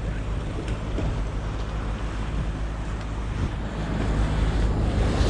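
Steady low rumble of city street traffic with wind buffeting the microphone; a hiss builds near the end.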